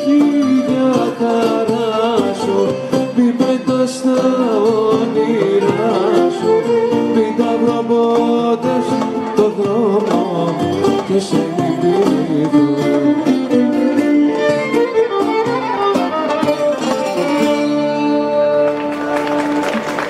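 Live Greek folk band playing a dance tune: bouzoukis and violin over guitar and toumbeleki drum. The tune ends about a second before the close, giving way to crowd noise.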